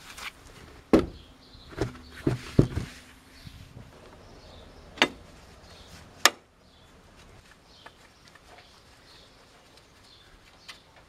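Hand tools being handled against the car's front suspension: a few dull knocks in the first three seconds, then two sharp metallic clicks about five and six seconds in.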